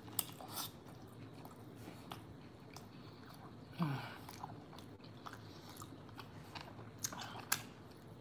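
Close-miked mouth sounds of a person biting and chewing a fatty piece of ribeye steak: scattered wet smacks and clicks, with a short falling 'mm' hum about four seconds in.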